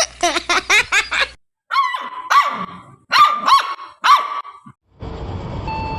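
A puppy barking in a quick run of high yaps, about six a second, then four or five separate barks that drop in pitch. About five seconds in, the steady rumble of a running train starts, with steady tones held over it.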